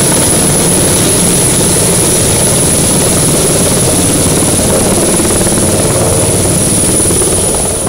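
Large helicopter with its rotors turning and turbine engines running loudly, a steady high-pitched whine above the rotor noise. The sound begins to fade near the end.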